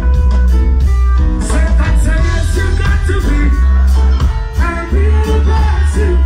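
Live reggae band playing with a heavy bass line and drums, a male vocalist singing over it.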